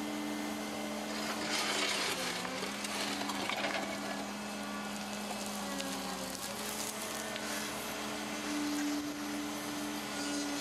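Cat 309 CR mini excavator working a trench: the steady hum of its C3.3B diesel engine and hydraulic pump dips briefly in pitch twice as the hydraulics take load. Soil scrapes and pours as the bucket digs, loudest about two to four seconds in.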